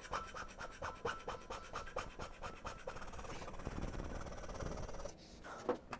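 Hand scraping of the dovetail guideway on a 676P milling machine part: a rapid run of short scraper strokes, about five a second, each with a faint metallic ring, which stop near the end. The strokes are cross-hatched passes worked around the high spots to true the guideway.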